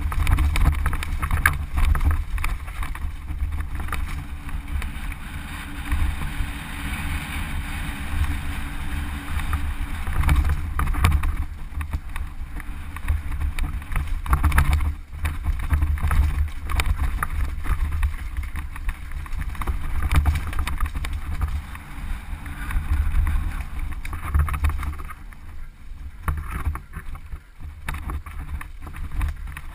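Mountain bike riding down a rocky trail, heard from a camera on the rider: a steady low rumble of wind and ride noise on the microphone with frequent knocks and rattles as the bike runs over rocks.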